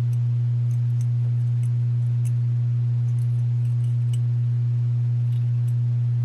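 Loud steady electrical hum, a low tone with fainter higher overtones, with faint light clicks scattered over it.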